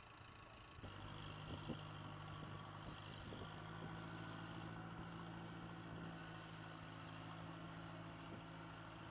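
A steady low engine hum, starting abruptly about a second in and holding an even pitch.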